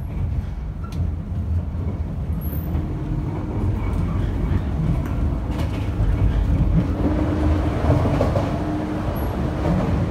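Running noise of a 485-series electric train heard inside the passenger car: a steady low rumble from the wheels and bogies with a faint steady hum. It grows louder from about six seconds in, as the door to the vestibule opens.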